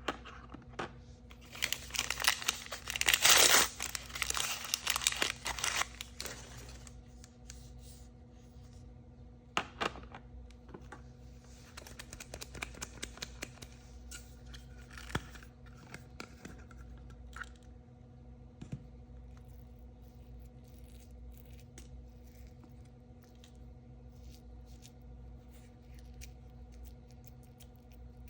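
Plastic surprise packaging being torn open and crinkled, loudest in a burst of tearing and crackling a couple of seconds in, then softer rustling a little before the middle and scattered small clicks and taps.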